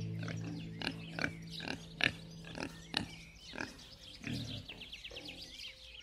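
Wild boar giving short grunts, about two a second, over a steady low music note that fades out about three seconds in. Faint bird chirps come in near the end.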